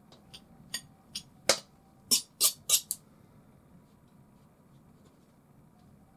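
A metal palette knife scraping in a quick series of short strokes, about eight in the first three seconds and growing louder, then it stops.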